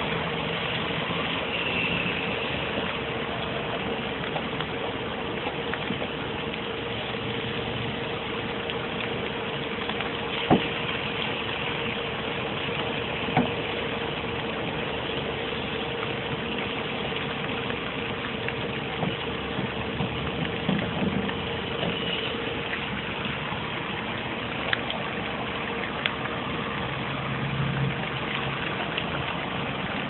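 Steady engine-like hum with a constant mid-pitched tone that fades out about two-thirds of the way through, with a few sharp clicks standing out above it.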